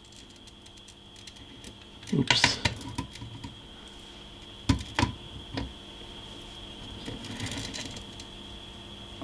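Handling noise from a circuit board and test probes being moved: a short rustle a couple of seconds in, then three sharp clicks around the middle, over a steady faint high whine and low hum.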